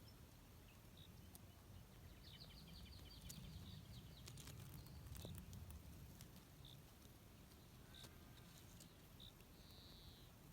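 Faint insect chirping: short high chirps about once a second, with a brief run of rapid ticking about two seconds in, over a low rumble.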